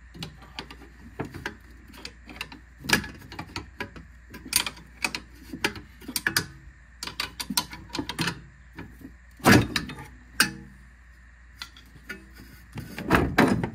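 Irregular metal knocks, clunks and scrapes from a front strut assembly being levered and worked loose from its mounting. The loudest clunks come about nine and a half seconds in and near the end.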